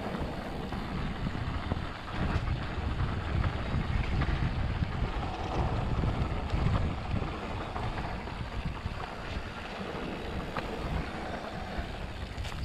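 Wind buffeting the microphone over the rumble of mountain bike tyres rolling on a dry dirt trail, with a few light clicks and rattles from the bike.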